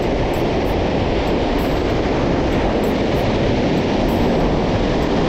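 Steady rushing roar of surf breaking on a sandy beach, even in level and without any distinct separate events.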